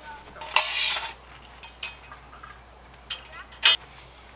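Metal tableware being handled: a scrape about half a second in, then a few short clinks, from a spoon working in a stainless camping cup.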